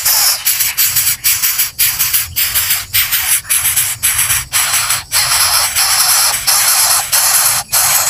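Background music: a loud, hissing, noise-heavy electronic track with a steady pulse, broken by short gaps about twice a second.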